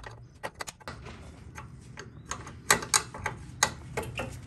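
Steel open-end 10 mm wrench clicking and tapping against a brake line flare nut in a run of quick, irregular clicks as the sticky fitting is worked loose, with a few sharper clicks about two-thirds of the way through.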